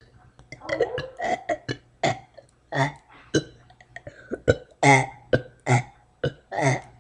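A young boy burping on purpose, a quick string of about a dozen short burps, some with a clear pitch.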